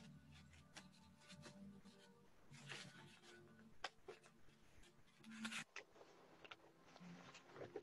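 Near silence: faint room tone over a video call, with a few scattered soft clicks and rustles.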